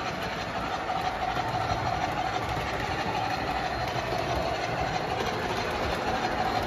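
MTH model steam locomotive running on toy-train track: a steady motor whine over the rumble of wheels on the rails, unbroken throughout.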